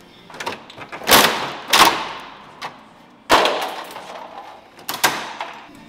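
Parts of a stripped pickup cab's dashboard being yanked and banged loose: four loud crashes with rattling, ringing tails, with lighter knocks between them.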